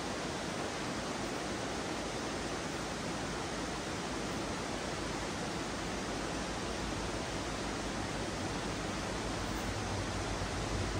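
Mountain trout stream flowing over rocks: a steady, even rush of water.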